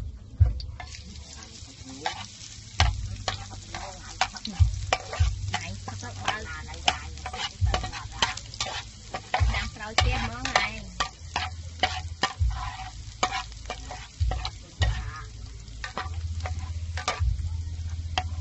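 Chopped garlic sizzling in hot oil in a frying pan, with a metal spatula scraping and knocking against the pan as it is stirred, giving many sharp clicks over the frying.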